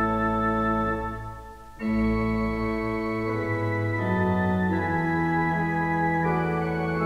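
Church pipe organ playing sustained chords over a pedal bass line. The chord dies away about a second in and a new one starts just under two seconds in, and the bass then steps to new notes twice.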